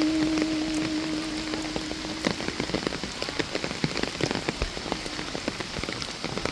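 Steady rain falling, with many separate drops striking close by. A single held low note of the hymn music sounds over it and ends about two seconds in. Then the rain alone goes on until it cuts off suddenly at the very end.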